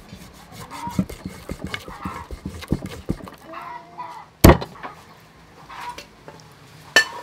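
Large knife chopping a big fish into steaks on a wooden chopping block: a run of small cracks and knocks as the blade works through skin and backbone, then one loud chop into the block about four and a half seconds in and another near the end. Faint animal calls recur in the background.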